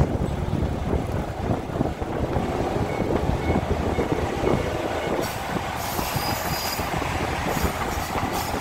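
Diesel railcar running along the track, heard from aboard: a steady low rumble with irregular clatter of the wheels over the rails. A higher hiss joins about five seconds in.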